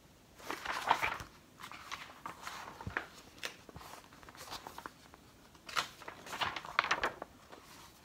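Paper pages of a picture book rustling and crackling as they are turned and the book is handled, in three bouts of rustling.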